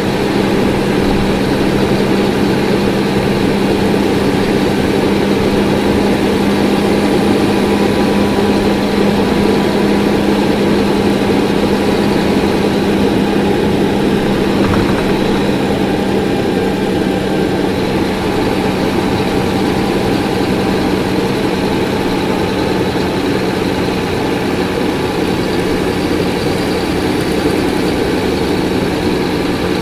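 Cummins ISC 8.3-litre diesel engine of a 2001 Nova Bus RTS transit bus running at a steady engine speed, a constant hum with no revving.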